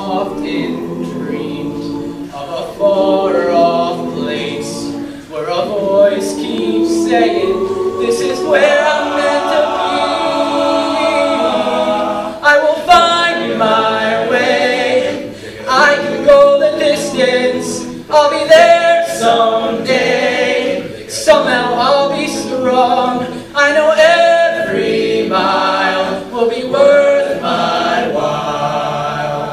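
Male a cappella group singing a Disney song medley: a solo voice carries the tune over close harmony from the other singers, with no instruments.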